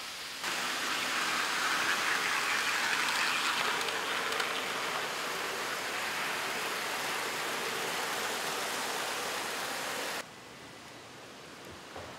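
Steady rushing noise of model trains running on a large layout. It jumps louder about half a second in and drops away abruptly near the end, with a few faint clicks after.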